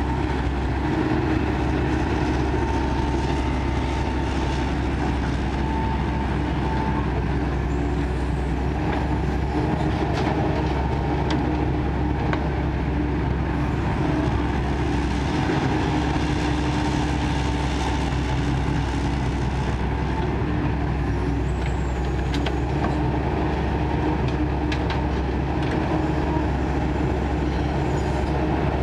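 Kobelco excavator's diesel engine running steadily while digging, with a few faint clicks and knocks.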